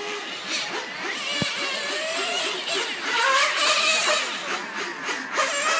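Small two-stroke glow-fuel engine (a tuned Novarossi 353) in a nitro RC on-road car, revving up and down as it laps the track. Its high whine rises and falls in pitch through the corners and straights.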